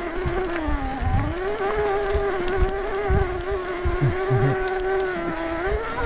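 2022 Specialized Turbo Levo S-Works mid-drive motor whining loudly under pedalling, a grinding tone whose pitch sags about a second in and then rises and holds: an abnormal motor noise that the shop put down to something wrong with the motor. Light clicks from a GoPro harness buckle tapping the camera case and low thumps from the rough trail sound with it.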